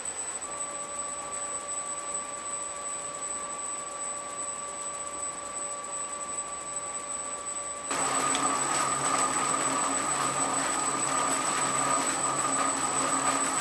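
Warco milling machine's spindle running steadily: a light whine at first, then a louder, fuller running hum from about eight seconds in.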